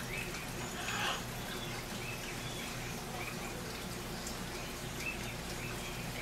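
Steady low hum and hiss of aquarium air pumps and filters running, with short high chirps every second or so.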